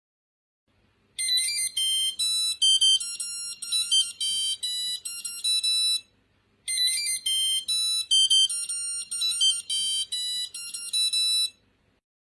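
Mobile phone ringtone: a quick, high-pitched electronic melody of short notes, played through twice with a brief pause between.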